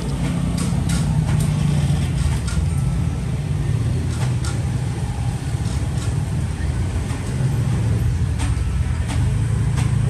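Sharp metallic clicks of a Zippo lighter's hinged lid being flicked open and snapped shut, about a dozen spread unevenly through, over a steady low rumble.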